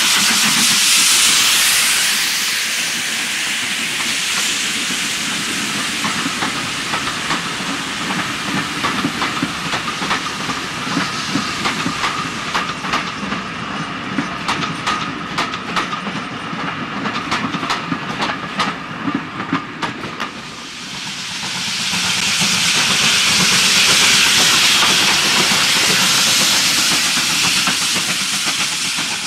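A steam locomotive passes close by with a loud hiss of steam, then its coaches roll past with rapid clicking of wheels over rail joints. About two-thirds of the way through, a second steam locomotive, the GWR 0-6-2T tank engine 6619, passes with a loud hiss of escaping steam.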